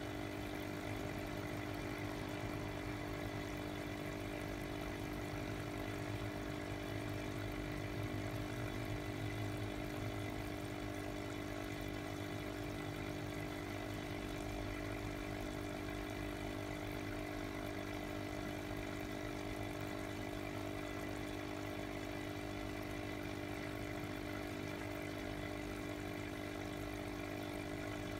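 Aquarium air pump humming steadily, with air bubbling through the water of a glass fish bowl.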